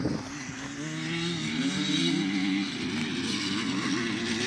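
Motocross dirt bikes revving on the track, their engine note rising and falling with the throttle and growing louder from about a second in.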